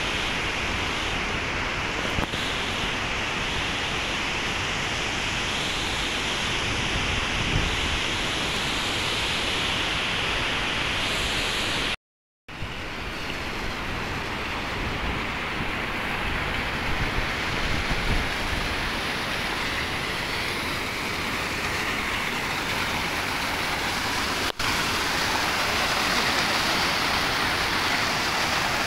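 Steady rushing of a fast white-water river, broken by a split-second dropout about twelve seconds in.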